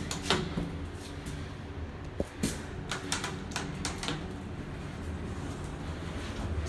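Elevator door-close button clicking as it is pressed again and again, about a dozen irregular clicks over four seconds. A low hum from the elevator car grows louder near the end.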